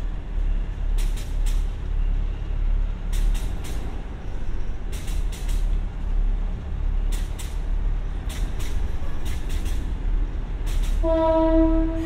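KiHa 52 diesel railcar idling at a standstill with a steady low rumble, and clusters of short sharp noises every second or two. About 11 seconds in, a train horn sounds one steady note.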